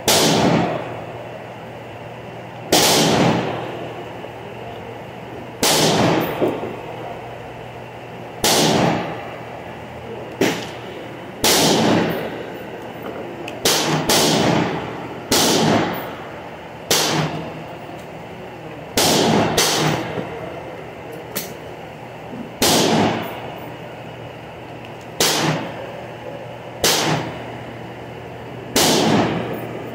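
Gunshots at a covered firing range, about seventeen single shots at irregular intervals of one to three seconds, each followed by a ringing echo under the wooden roof.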